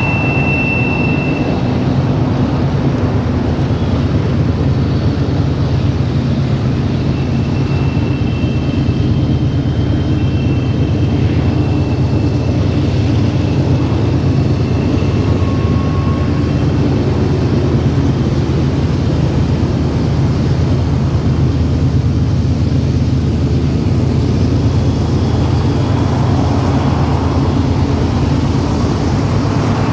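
Loud, steady low drone from rail machinery, unchanging throughout, with a few faint, brief high tones over it.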